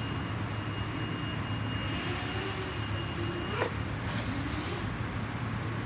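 High whine of an FPV miniquad's brushless motors heard over steady outdoor noise, wavering in pitch. About three and a half seconds in, the whine drops sharply in pitch and cuts out with a click as the throttle is chopped.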